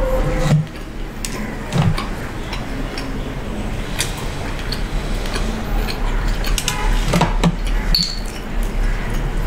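Close-miked eating sounds: a person chewing KFC fried chicken, with scattered clicks and clinks of food and fingers against a plate and a glass tabletop. A steady low hum runs underneath.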